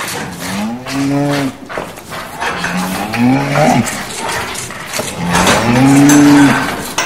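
Cows mooing in a stable: three long moos, each rising in pitch and then holding, the last one the loudest. Scattered knocks and rustling from the stalls sound under them.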